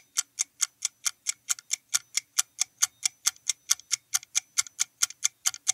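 Countdown-timer ticking sound effect: a steady, clock-like tick at about five ticks a second, marking the time left to answer a quiz question.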